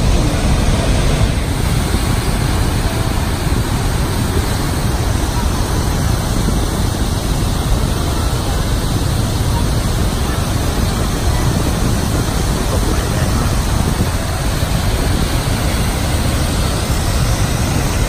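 Steady, loud rush of Niagara Falls' water plunging into the gorge, an unbroken noise heaviest in the low end.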